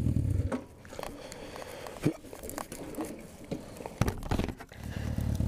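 Suzuki GS650 motorcycle engine idling, then cut off about half a second in. A few sharp knocks and rustles follow as the stopped bike and gear are handled. An engine rumble comes back near the end.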